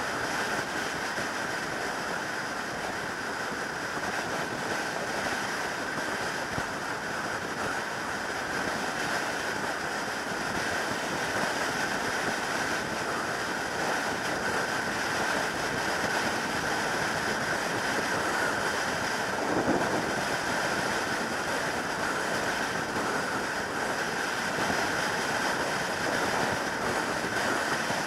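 Steady wind rush over the microphone and road noise from a 2003 Yamaha YZF600R Thundercat sport bike riding at motorway speed, with a brief louder swell about twenty seconds in.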